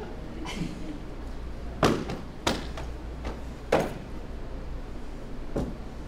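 Four sharp slaps from a line of men moving together in a close-order drill routine. The first comes about two seconds in, two more follow within two seconds, and a fainter one comes near the end.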